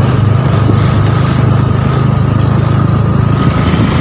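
Motorcycle engine running steadily at low riding speed, heard from on the bike, with a thin steady whine above the engine note.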